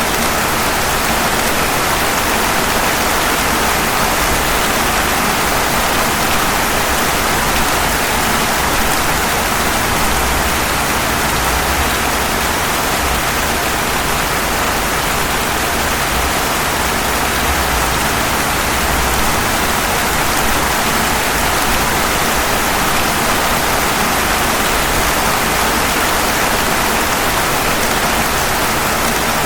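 Steady rain falling on pavement, an even, unbroken hiss.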